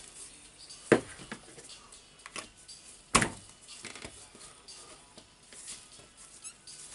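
Rotary hammer's back cover being handled and pressed onto the housing: a few scattered clicks and knocks, the loudest just after three seconds in.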